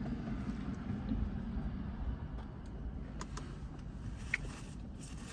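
Steady low background rumble with a few faint, brief clicks about three to four seconds in.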